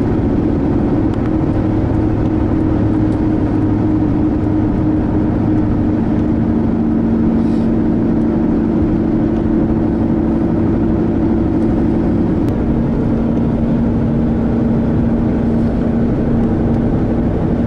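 Car interior driving noise: steady engine hum and road rumble from a moving car. The hum drops a step in pitch about six seconds in.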